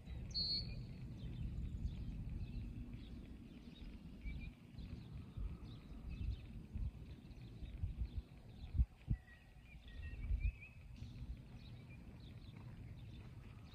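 Wind rumbling on the microphone, with small birds chirping faintly in the background. A few dull low thumps come about two-thirds of the way through.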